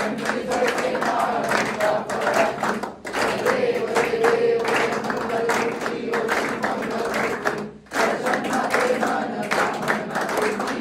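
A group of people singing a devotional aarti together while clapping their hands along.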